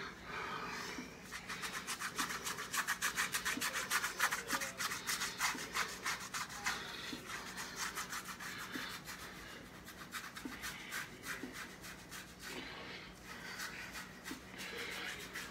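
OmniShaver dual-directional razor scraping back and forth through stubble on a lathered scalp in rapid repeated strokes. The strokes are strongest in the first several seconds and grow fainter and sparser later.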